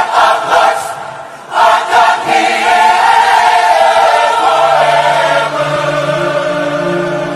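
Choir-like singing: a few short chanted chords, then one long held chord, with low notes coming in about halfway through.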